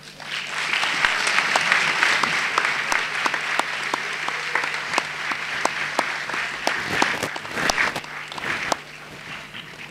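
Audience applause in a hall. It builds quickly, holds for several seconds, then thins out to a few scattered claps and dies away near the end.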